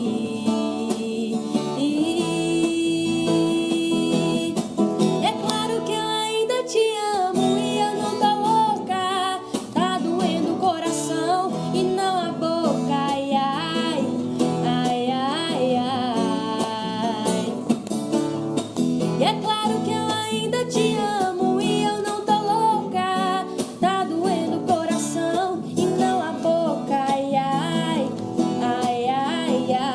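Acoustic guitar playing chords under singing, with a woman's voice leading.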